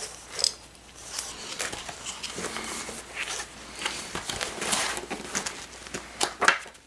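Book pages being handled and turned, a string of soft paper rustles and small ticks, with two sharper rustles about five and six and a half seconds in.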